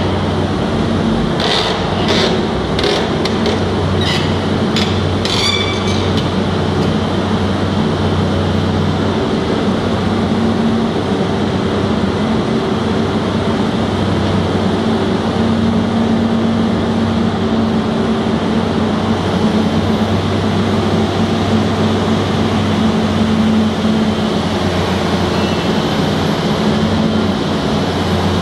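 CAT 320C excavator's six-cylinder diesel engine and hydraulics running steadily with a low hum. A run of short sharp knocks, about one every two-thirds of a second, comes in the first few seconds.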